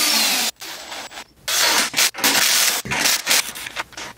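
A power drill runs and stops about half a second in. Then comes a string of irregular scraping and rubbing sounds from wood and tools being handled.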